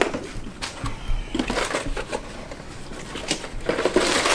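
Loose trash being handled and thrown out: irregular rustling, crinkling and small clatters of paper, plastic and odds and ends, thickest near the end.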